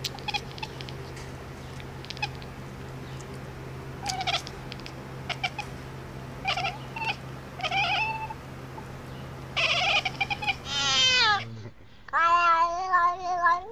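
A cat meowing: several short meows, then a longer meow that falls in pitch, and a wavering, drawn-out yowl near the end. A steady low hum runs underneath and stops about eleven seconds in.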